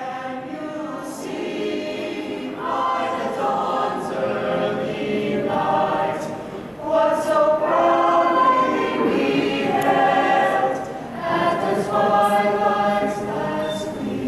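Choir of graduating students singing in unison phrases, without obvious accompaniment, growing louder about halfway through, heard across a large reverberant hall.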